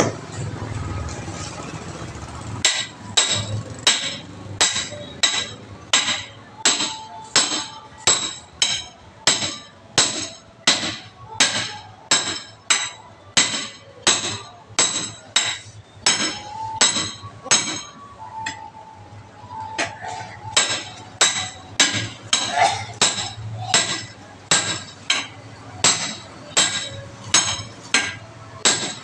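Hammer blows on an iron tyre lever wedged between a small tyre's bead and its steel rim, working the bead off the rim. A steady run of ringing metal-on-metal strikes, about three every two seconds, begins a couple of seconds in and pauses briefly about two-thirds of the way through.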